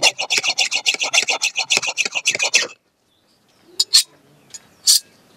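Hand file rasping on the metal blade of a sickle in quick, even strokes, about seven a second, as the sickle is sharpened. The filing stops about halfway through, and two short sharp clinks follow near the end.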